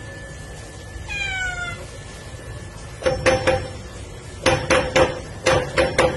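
A cat meows once, falling in pitch. From about three seconds in, it paws at a door's metal sliding bolt and padlock, rattling them against the wooden door in three quick clusters of sharp metallic knocks with a ringing tone.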